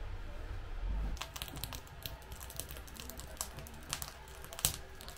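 After a low rumble for about the first second, a fire burning in a metal drum stove crackles: irregular sharp pops and snaps, one louder snap near the end.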